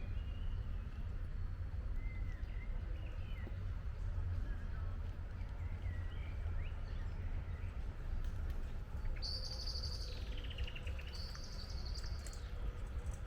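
Forest ambience: small birds chirping on and off over a steady low rumble, with a louder, high-pitched song about nine seconds in that drops into a rapid falling trill and then returns to high notes.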